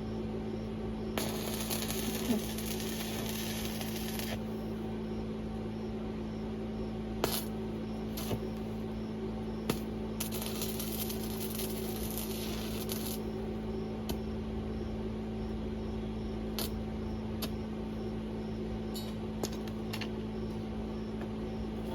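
Electric arc welding: two spells of arc hiss, each about three seconds long, over a steady electrical hum, with a few sharp metallic taps in between.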